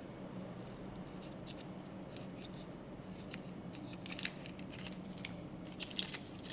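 Toy and candy packaging being handled and opened by hand: a run of short crisp ticks and crinkles that grow busier toward the end, over a low steady hum.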